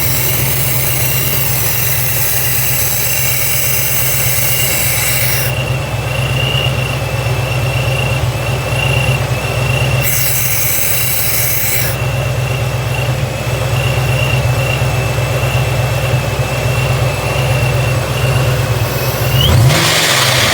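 Engine idling with a steady, slightly wavering high-pitched whistle: the sound of a vacuum leak. A loud hiss of rushing air comes in over the first five seconds and again about ten seconds in, and near the end the pitch rises briefly with a burst of noise.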